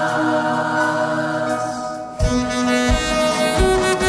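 Backing track of a rock-and-roll Christmas song: a held chord, then about two seconds in the drums and bass come in with a steady beat and a saxophone takes up the tune.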